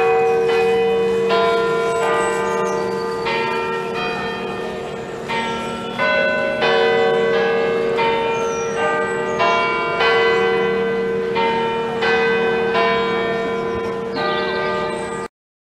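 St Albans Cathedral's tower bells ringing in quick succession, a new bell struck roughly every two-thirds of a second, each note hanging on under the next; the ringing cuts off suddenly near the end. Birds chirp faintly.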